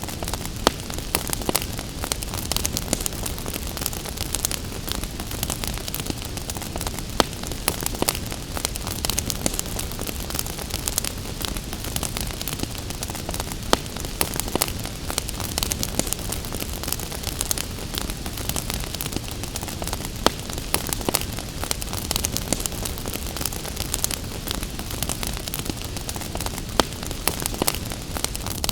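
Wood fire crackling in a fireplace, with many small snaps and a few louder pops, over a steady hiss of rain.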